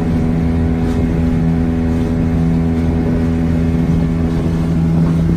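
Motor of a small fibreglass boat running steadily under way, a constant drone at an unchanging pitch.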